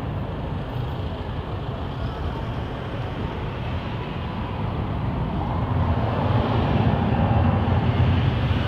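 Jet airliner's engines running, a steady rumble that grows louder about five or six seconds in.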